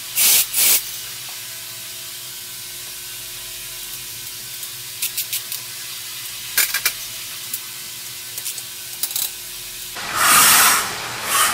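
Machining center running with a steady hum, with scattered sharp metallic clicks and knocks as a round blank is clamped in the chuck with a T-handle key. About ten seconds in, flood coolant sprays onto the part with a loud hiss.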